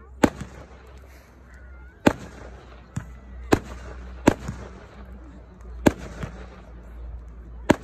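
Aerial fireworks shells fired from a ground-launched cake, bursting with sharp bangs: about seven at uneven intervals, over a steady low rumble and faint crackle.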